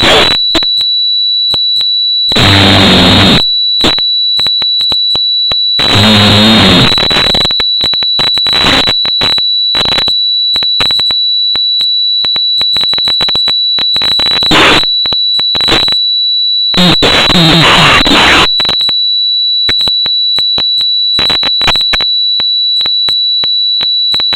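A man snoring: noisy snores about a second long. Two come a few seconds apart, then a long gap, then a longer snore about two thirds of the way through. A constant high-pitched tone sounds throughout.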